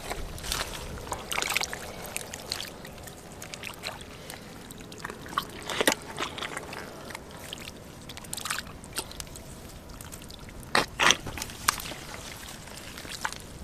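Hands digging and squelching in wet mud among plant stems, with small wet splashes and rustling crackles at an uneven pace; a sharper wet slap about six seconds in and a couple more around eleven seconds.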